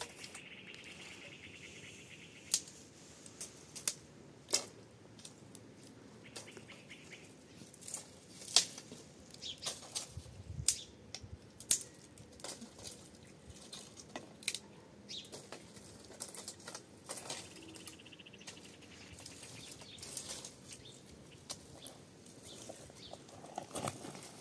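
Irregular sharp clicks and knocks, a dozen or more at uneven intervals, over a faint steady hiss, with a short rapid high rattle at the start and again a little past the middle.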